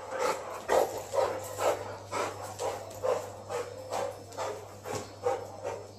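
Rottweiler and Akita play-fighting: a rapid run of short dog vocal sounds, about three a second.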